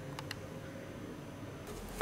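Two quick faint clicks, then near the end a rustle of old paper as a hand touches a worn book's torn pages, ending in a sharp tick.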